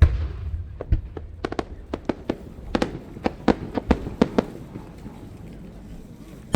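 Aerial firework shell bursting with a deep boom, followed by a string of sharp crackling pops over about four seconds that thins out near the end.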